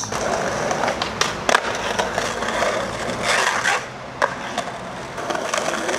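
Skateboard wheels rolling over rough pavement, a steady grinding rumble broken by a dozen or so sharp clicks as the wheels cross cracks and joints.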